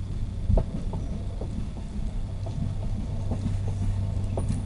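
Low, steady rumble of a diesel locomotive approaching from a distance down the track, with a few light clicks and knocks scattered through it.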